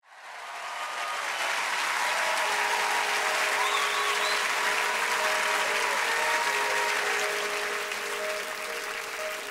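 Large theatre audience applauding and cheering, with a few high-pitched shouts rising above the clapping. Faint held musical notes sound beneath from a couple of seconds in.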